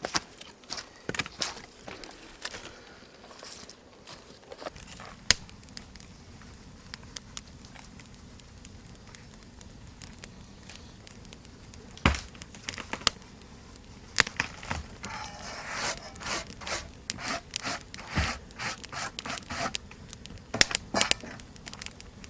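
Small campfire of pine kindling crackling, with scattered sharp snaps and pops that come thicker toward the end.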